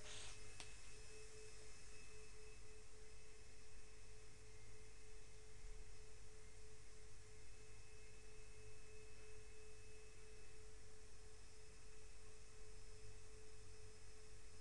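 A faint steady tone at one held pitch over a low hum and hiss, with a small click just after the start.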